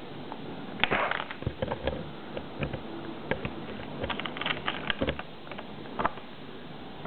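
Plastic Lego bricks and minifigures clicking and tapping as fingers move them about on a Lego baseplate: irregular short clicks, busiest a little past the middle.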